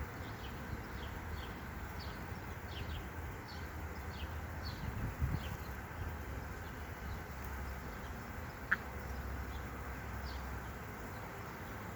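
Honeybees buzzing in a steady hum around an open hive, with small birds chirping repeatedly in the background and one short sharp click near the end.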